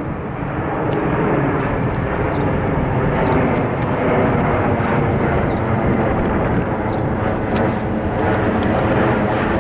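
American Airlines Boeing 777 jet airliner going over, its engines giving a steady roar that swells a little over the first couple of seconds and then holds.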